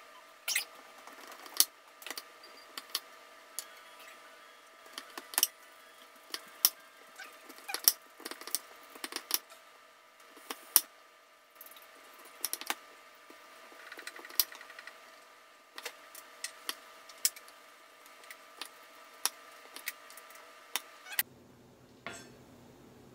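Kitchen knife chopping a peeled sweet potato on a wooden cutting board: irregular knocks of the blade striking the board through the flesh, roughly one to two a second, some in quick runs with short pauses between.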